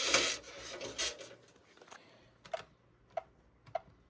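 A brief rustle of handling, then four short, evenly spaced clicks about 0.6 s apart, which are buttons being pressed on an alarm system keypad to disarm it.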